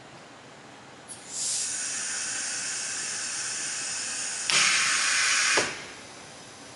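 Compressed air hissing on a Peerless Hallmark HM300 sigma mixer: a click about a second in, then a steady hiss, which turns louder for about a second before cutting off.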